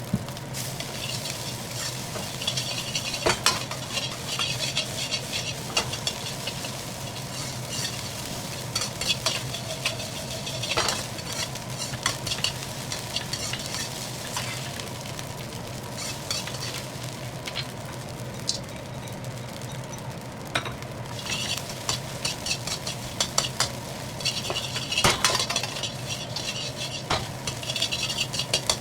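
Food sizzling in a hot wok as fried rice is stir-fried, with a spatula repeatedly scraping and knocking against the wok. A steady low hum runs underneath.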